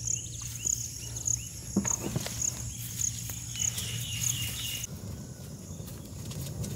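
Outdoor rural ambience: an insect chirping in a steady high pulse, about two chirps a second, over a low steady hum, with a few faint knocks. The chirping stops about five seconds in.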